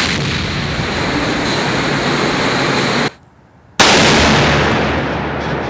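US Navy electromagnetic railgun shots: the loud roar of one shot runs about three seconds and cuts off. Nearly four seconds in, a second shot hits with a sudden blast whose roar dies away slowly.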